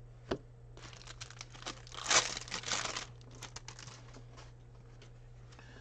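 Wax-paper wrapper of a baseball card pack being torn open and crinkled, a burst of rustling about a second in that is loudest near two seconds, then a few faint rustles.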